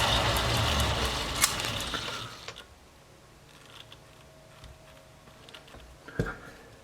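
Atlas Craftsman lathe running at about 700 RPM, then winding down and going quiet about two seconds in. Afterwards there are a few faint clicks and one sharp knock near the end.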